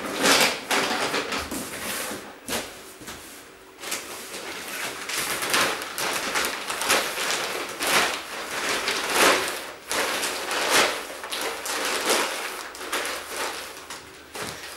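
Rustling and knocking of household items being handled and packed away, a run of irregular crinkles and small bumps with no steady rhythm.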